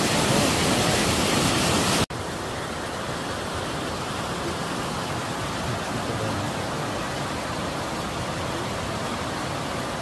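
Water rushing down a small cascade in a steady hiss. About two seconds in it cuts abruptly to a softer, steady flow of a shallow stream and small falls.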